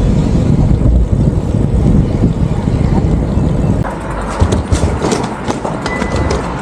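Wind rumbling on the microphone of a moving bicycle, easing about four seconds in, after which scattered sharp clicks are heard.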